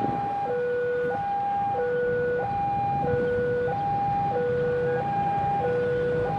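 Electronic two-tone warning alarm alternating evenly between a higher and a lower tone, changing about every two-thirds of a second.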